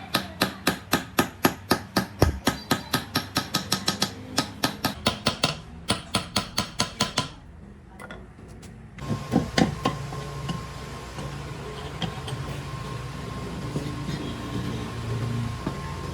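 Rapid, evenly paced hammer blows on metal, about four to five a second. They stop about seven seconds in, and after a short pause a steady hum with a held tone begins.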